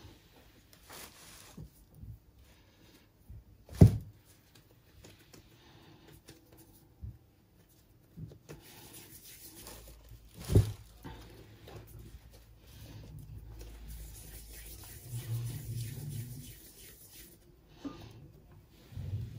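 Kitchen handling sounds of dough and utensils being worked: scattered rubbing and rustling, with two sharp knocks, about 4 and 10 seconds in. A low steady hum runs through the second half.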